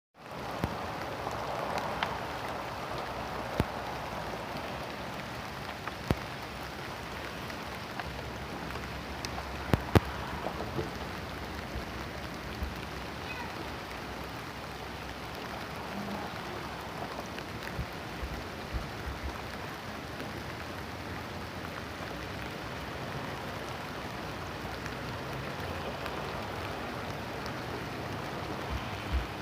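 Steady rain falling, a continuous hiss with scattered louder drop clicks, the sharpest about ten seconds in.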